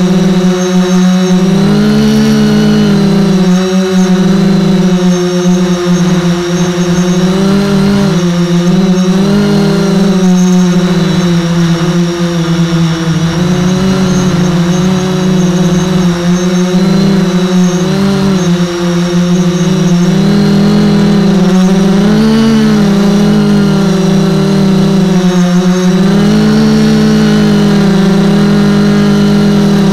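Onboard motor of a radio-controlled model boat running steadily close to the microphone: a loud, constant drone whose pitch wavers slightly up and down every second or two.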